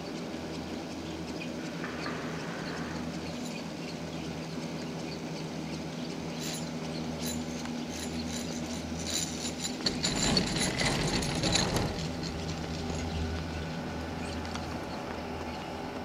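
Gondola lift's running haul rope humming steadily over the line sheaves. A clicking rattle builds and is loudest about ten to twelve seconds in, as a four-seat cabin on its Müller screw-clamp grip passes close overhead, then fades.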